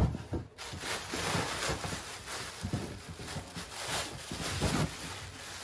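Thin plastic bag rustling and crinkling in irregular bursts as it is untied and pulled open by hand. There is a thump right at the start.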